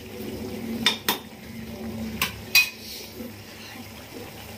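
Steel spoon stirring tomato fry in a metal kadai, clinking sharply against the pan four times: twice about a second in, and twice more between two and three seconds in.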